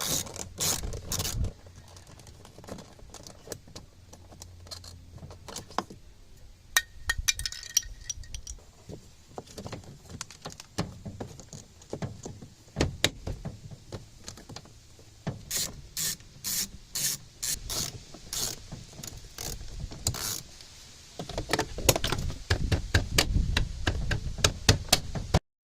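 A long series of sharp mechanical clicks and knocks: scattered at first, then a run of evenly spaced clicks, and a dense clatter near the end.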